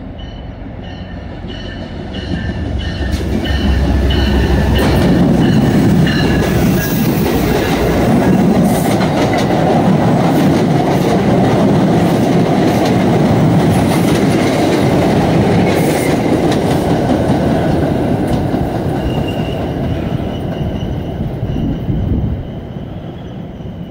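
MBTA diesel commuter train approaching and passing close by: the sound builds, a deep engine rumble comes as the front goes by, then the bi-level coaches roll past with wheels clattering over the rail joints. A bell rings in a steady repeating pattern during the approach. The sound drops suddenly near the end.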